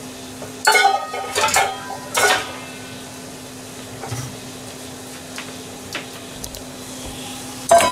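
Metal kitchenware clattering: a stainless steel bowl and pots clank together several times in the first two seconds or so, and once more at the end. A steady low hum runs underneath.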